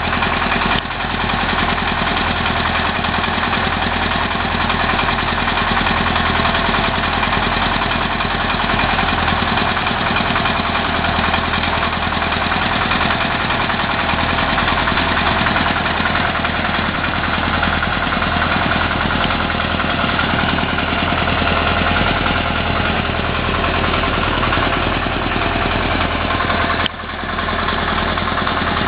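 Drilling rig's engine running steadily, with a brief drop in level near the end.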